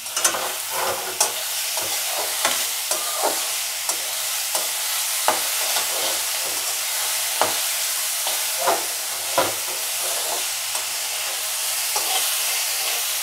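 Chopped vegetables being lightly sautéed, sizzling steadily in oil in a metal kadai. A metal spatula scrapes and clacks against the pan at irregular moments as the vegetables are stirred.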